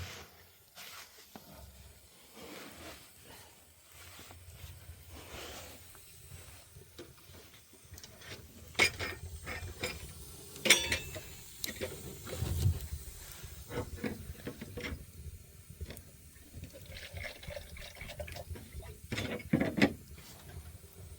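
Scattered knocks and clinks of hard objects being handled, with a few sharper ones in the middle and near the end.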